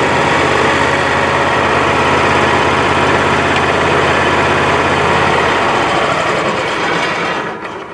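Kohler Command Pro twin-cylinder engine on a Wood-Mizer LT35 sawmill running steadily to warm the oil before an oil change. Near the end it is shut off and runs down to quiet.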